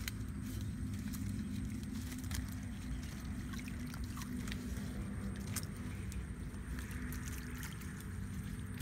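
Water sloshing and dripping, with twigs and stakes knocking and crackling, as hands grope through a brush-and-stake fish trap in shallow muddy water, over a steady low hum.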